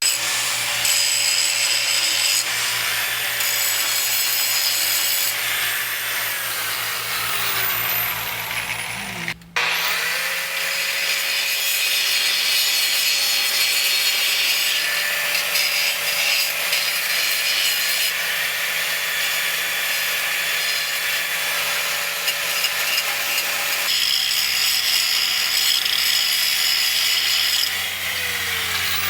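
Electric angle grinder grinding steel, a steady whirring hiss with falling pitch as it slows a couple of times. This is prep work on the cracked frame of a field cultivator before it is welded. The sound breaks off abruptly about nine seconds in, then carries on.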